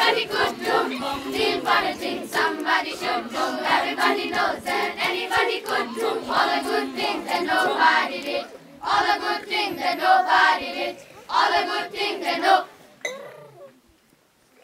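Children's school choir singing a cappella, steadily for about eight seconds, then in short separated phrases, with a brief near-silent pause near the end.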